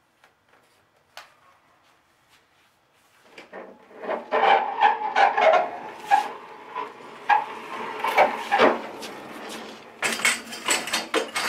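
Homemade plywood motorcycle turntable being rotated by hand on its lazy susan bearing and caster wheel over a concrete floor: a rough grinding rumble with many clicks and knocks, starting about three seconds in.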